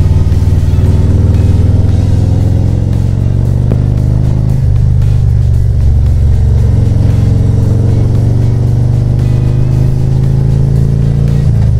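Harley-Davidson Road Glide's V-twin engine running under way, heard from the rider's seat, its pitch drifting slowly with the throttle, with wind and road noise.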